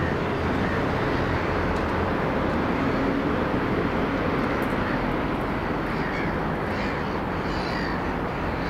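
Steady rumble of distant road and rail traffic, with a few bird calls, crow-like, in the second half.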